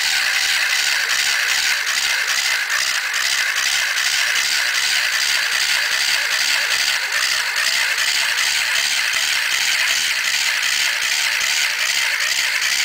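Small battery-powered electric motor and gear drive of a homemade model crawler tractor running with a steady high whine, with the chipboard track links rattling and clicking a few times a second as it crawls.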